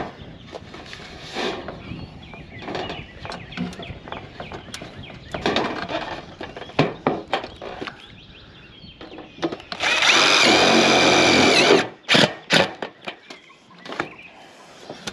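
A cordless drill-driver runs for about two seconds, starting about ten seconds in, driving a roofing screw through the steel ridge cap into the metal roof panels. Scattered knocks and taps on the sheet metal come before and after it.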